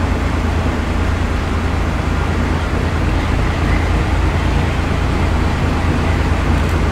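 Vintage diesel locomotive idling at a standstill: a steady low rumble.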